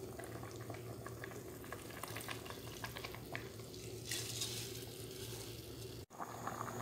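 Chicken broth simmering in a pot, a faint bubbling crackle over a steady low hum. From about four seconds in, a soft hiss as soaked rice slides off a plate into the broth, cut off suddenly near the end.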